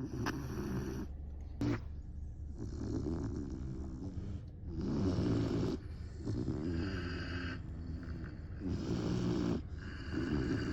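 Great Dane puppy snoring loudly while asleep, a rasping snore on each breath, one every second or two.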